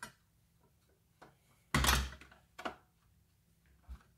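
Handling knocks and thunks as a plastic-bodied circular saw is turned and set down on the workbench, the loudest thunk about two seconds in.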